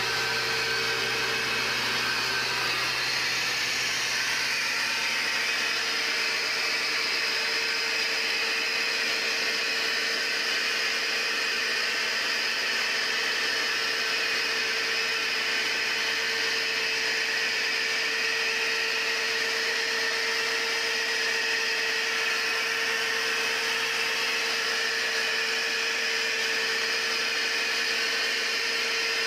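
A machine running at an even speed: a constant whirring hum with a steady tone in it, unchanging throughout.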